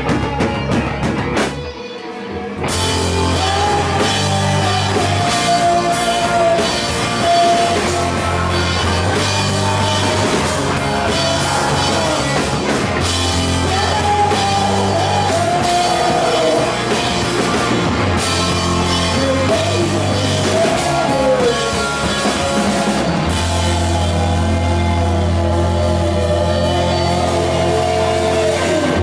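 Loud grunge rock with distorted electric guitars, bass and a drum kit. It drops briefly about two seconds in, then the full band comes back in.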